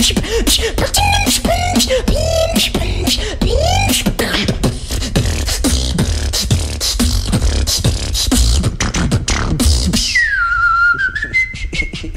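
Human beatboxing into a microphone: a dense, rhythmic beat of sharp clicks and deep bass kicks, laced with short pitched vocal sweeps. About ten seconds in the beat stops and a single high, drawn-out vocal tone takes over, dipping and then holding.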